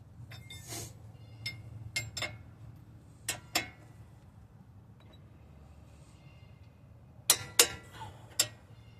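Metal hand tools clicking and clinking against steel suspension parts: a scattered series of sharp clicks, the loudest two in quick succession near the end.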